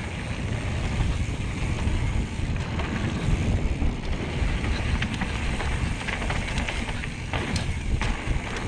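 Wind buffeting the GoPro microphone of a mountain bike riding fast down a dirt flow trail, with the rumble of tyres on packed dirt. A few sharp clicks or rattles come near the end.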